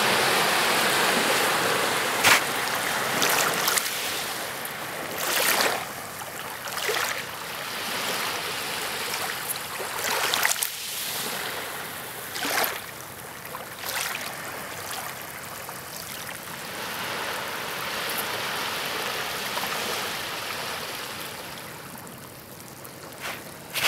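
Small waves washing in and splashing over shoreline rocks, with a steady wash of water behind. Separate splashes come every few seconds, and the wash grows quieter near the end.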